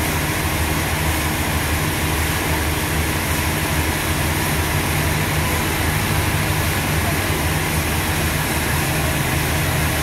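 Toyota SAS forklift engine running steadily, a constant low rumble with no change in speed.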